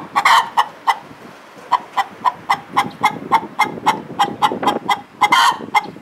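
Nagoya Cochin hen cackling loudly: a rapid run of short, sharp clucks, about three or four a second, with a longer drawn-out squawk just after the start and again near the end. It may be the usual cackle a hen gives after laying an egg.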